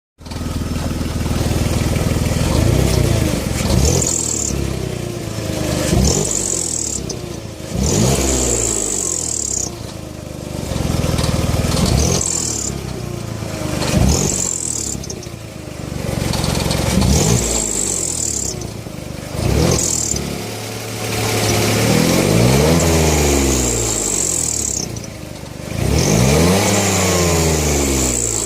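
BMW E46's M54 straight-six engine blipped from idle about ten times, each rev rising and falling. A high squeal comes in as the revs climb, which the owner puts down to a leaking exhaust manifold gasket.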